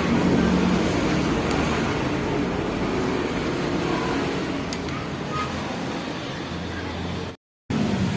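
Suzuki GT750 two-stroke triple engine running steadily. The sound cuts out for a moment near the end.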